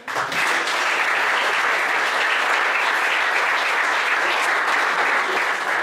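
Audience applauding, starting suddenly and holding steady as the audience and panel guests clap together.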